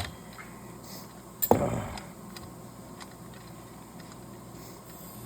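Metal hand tools handled on a workbench: a sharp click, then a loud ringing metal clank about a second and a half in, followed by a few faint ticks.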